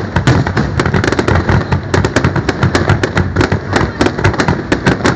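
Aerial fireworks display: a rapid, unbroken barrage of shell bursts and bangs, many a second.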